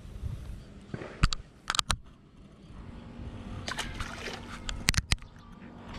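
A small fish dropped back into the canal, landing in the water with a splash about four seconds in. Sharp clicks and knocks come before and after it, from fishing line and tackle being handled.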